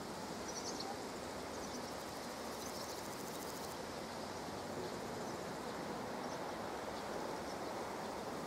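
Steady outdoor background noise with a few faint, short high chirps scattered through it.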